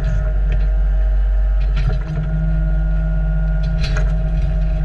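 New Holland mini excavator's diesel engine running steadily as the machine digs, with its bucket scraping and knocking against stony ground a few times, the loudest knock nearly four seconds in.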